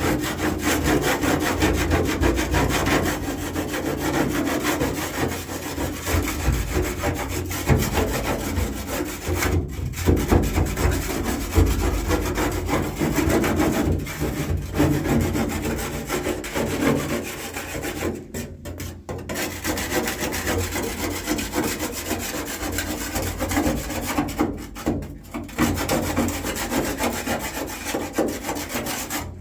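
Old sound deadening being scraped off a Classic Mini's steel floor pan by hand, in quick repeated rasping strokes with a few short pauses.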